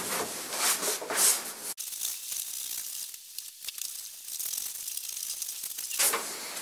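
Cloth rag damp with white spirit rubbing in strokes over the old finish of a bentwood bench's wooden seat and back, a scratchy swishing that drops away abruptly about two seconds in and picks up again near the end.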